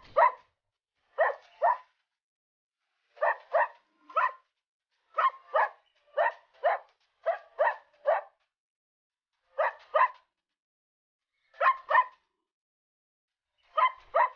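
A dog barking: short barks, mostly in quick pairs, repeated every second or two with dead silence between them.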